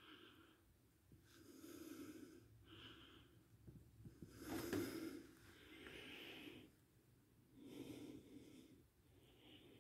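Faint breathing of a person close to the microphone, soft breaths in and out about every second.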